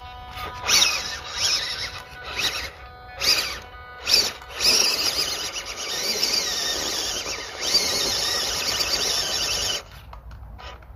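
The Fayee 180-size electric motor and gear drivetrain of a small RC crawler whine in repeated throttle surges, the pitch rising and falling. The sound stops near the end.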